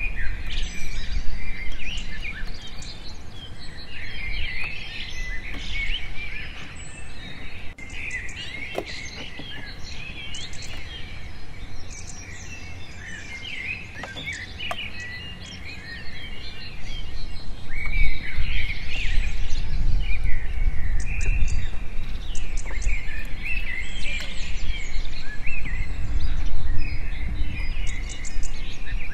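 Many birds chirping and singing at once in a dense, continuous chorus of short calls. A low rumble swells under them about two-thirds of the way through and again near the end.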